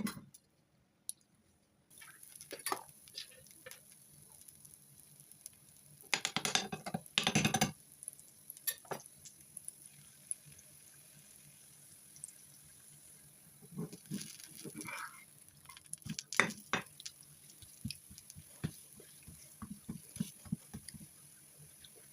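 Kitchen work sounds: scattered light clicks and knocks of utensils being handled, with two louder noisy bursts about six to eight seconds in and another cluster of knocks around fifteen seconds in.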